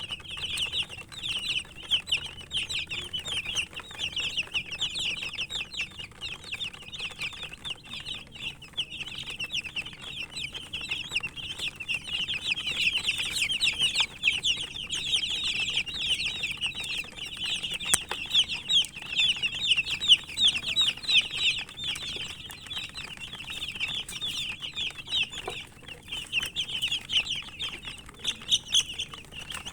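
A group of domestic chicken chicks peeping: many short, high, falling chirps overlapping in a continuous chorus.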